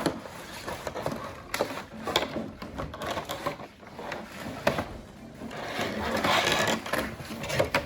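Handling of the plastic dissection-kit parts and their packaging: scattered clicks and knocks, then a longer stretch of rustling and scraping near the end.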